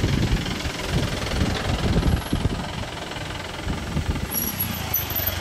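A motor vehicle's engine idling close by, low and uneven at first, then steadier after about three seconds.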